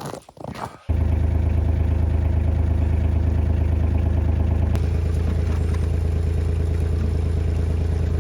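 An engine idling steadily. It cuts in abruptly about a second in, and there is a click near the middle after which it runs slightly quieter.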